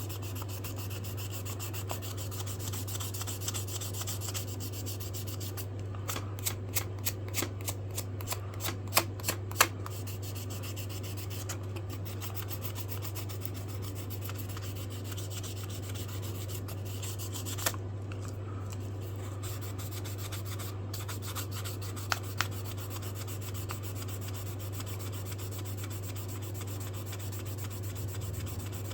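Hand sanding of wooden knife handle scales with 400-grit sandpaper, a steady rubbing over a constant low hum. About a quarter of the way in comes a quick run of a dozen or so sharp clicks, the loudest sounds here, and a few single clicks follow later.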